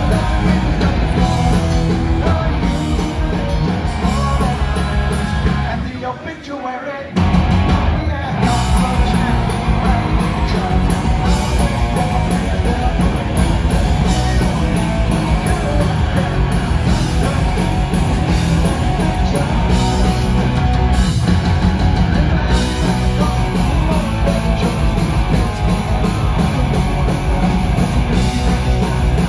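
Punk rock band playing live: distorted electric guitars, bass, drums and a lead vocal, heard from the crowd. About six seconds in the band drops out for about a second, then comes crashing back in.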